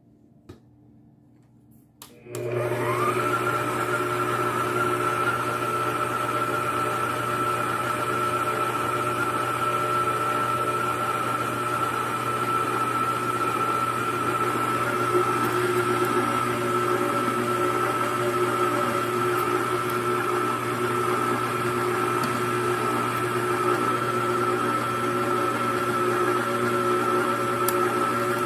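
Electric mixer switched on about two seconds in, its motor whining up to speed and then running steadily while it creams butter and sugar for pound cake batter.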